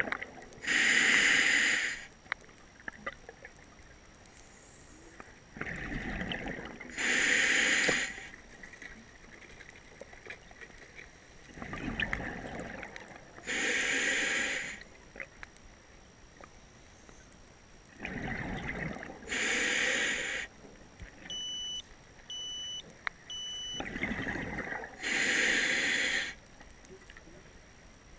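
Scuba diver breathing underwater through a regulator: a hiss on each inhale, then a loud gush of exhaled bubbles, about every six seconds, five breaths in all. Three short electronic beeps come a little apart from each other in the last third.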